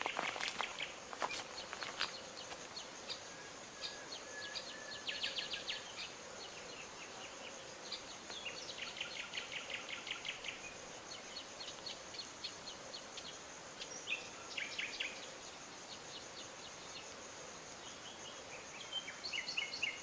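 Small birds chirping and trilling in short bursts, with one rapid trill lasting about two seconds near the middle, over a faint steady insect buzz.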